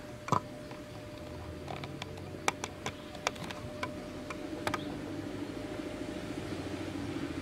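Outdoor background: a steady low hum that grows a little louder about halfway through, with a scattering of sharp clicks and snaps, the loudest about a third of a second in.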